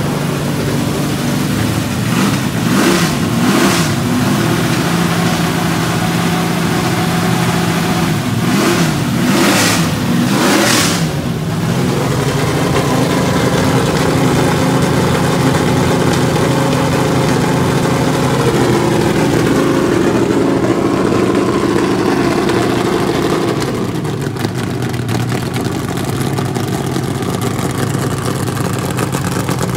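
NASCAR Winston Cup race car's carbureted V8 running through temporary, unfinished boom tube exhaust collectors. The throttle is blipped several times in the first eleven seconds or so, each rev rising and falling quickly, then the engine settles to a steady, loud idle. The exhaust note sounds totally different from the car's previous setup.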